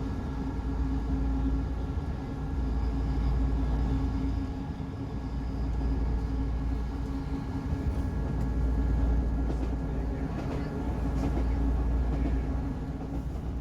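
Class 158 diesel multiple unit on the move, heard from a passenger's seat: a steady low rumble of the running train with a constant hum, swelling and easing slightly.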